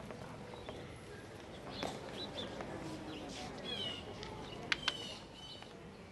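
Birds chirping over a hushed outdoor gathering with faint murmured voices, then two sharp clicks in quick succession near the end.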